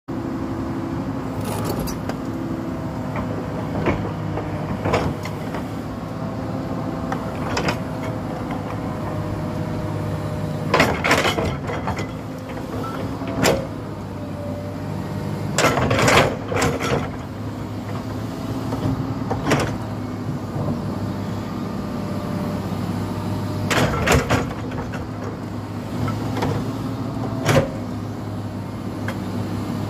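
Crawler excavator's diesel engine running steadily under working load with a faint hydraulic whine, while its bucket digs a road shoulder; sharp clanks and scrapes of the steel bucket on soil and stones come every few seconds, about ten in all.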